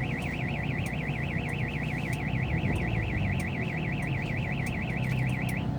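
Car alarm siren going off, a fast high warbling tone that stops suddenly near the end, over a low hum. It is the car's own alarm, which keeps going off again and again.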